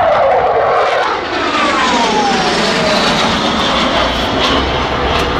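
Blue Angels F/A-18 Hornet jet flying past low overhead: a loud jet roar whose pitch falls over the first few seconds as it passes.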